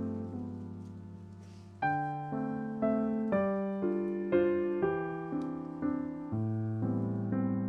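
Background music on electric piano: a chord rings and fades for about two seconds, then gentle chords and melody notes are struck about every half second.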